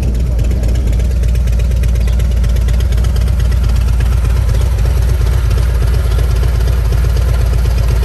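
Harley-Davidson Road Glide's V-twin engine idling, a steady low rumble.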